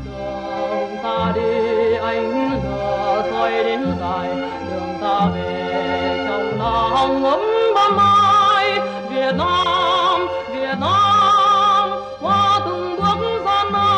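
Music: a singing voice holding long, wavering notes over instrumental accompaniment with a bass line.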